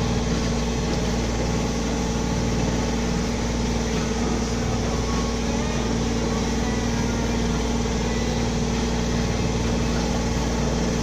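Sailboat's auxiliary motor running steadily while motor-sailing, a constant droning hum that does not change.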